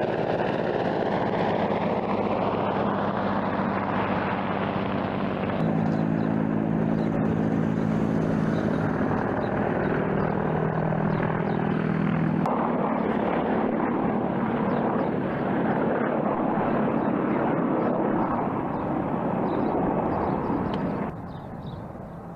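Attack helicopters in flight: steady turbine and rotor noise. It changes abruptly about six and twelve seconds in, as one clip gives way to the next, and drops in level near the end.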